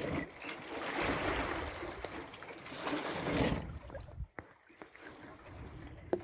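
Water rushing and sloshing along a sailboat's hull as it runs downwind in ocean swells, surging and easing in waves of sound, with a lull about four seconds in and a few small knocks.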